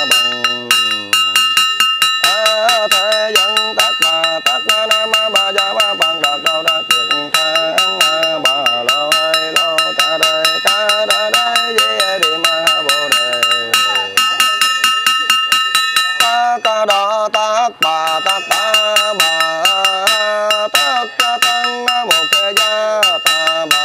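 A small handheld brass ritual bell struck rapidly and evenly with a thin striker, so that it rings on continuously, under a Buddhist monk's sung sutra chanting.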